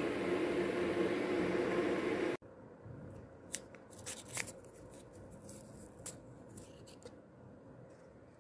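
Electric kettle heating water: a steady hiss with a low hum, cut off suddenly about two seconds in. Then a paper sugar stick sachet is handled and torn open, giving a few short, sharp crinkles and rips.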